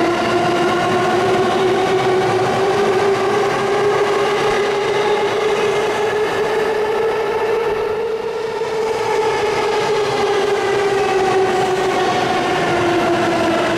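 Electric train running through the station: a steady motor whine that slowly rises in pitch and then falls again, over the rumble of wheels on the rails.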